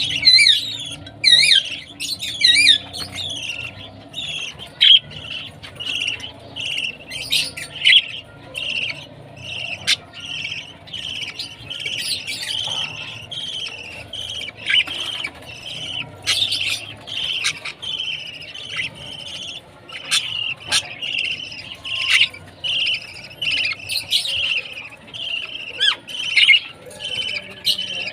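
Baby budgie (budgerigar chick) chirping over and over, several short calls a second, with quick warbling trills near the start: food-begging calls at feeding time.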